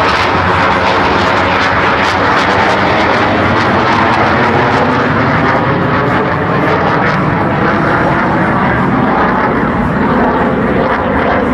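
Blue Angels F/A-18 Hornet jets flying overhead: a loud, steady jet roar from their twin turbofan engines, its higher hiss dulling in the second half.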